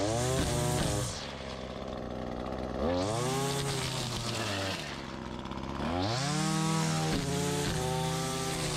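Gas string trimmer engine being throttled up and down. It is at high speed at first, drops toward idle about a second in, revs up again around three seconds, falls back near five seconds, and revs up once more around six seconds.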